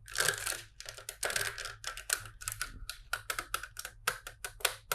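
Plastic LEGO bricks clicking and rattling in quick, irregular taps as pieces are handled and pressed together.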